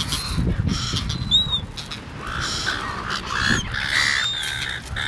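Gulls squawking around the picnic in short, high calls, several times over, with gusts of wind rumbling on the microphone.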